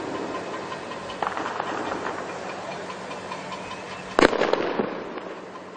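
A series of sharp cracks and pops, then one loud bang about four seconds in followed by a spatter of crackling, ringing out between buildings.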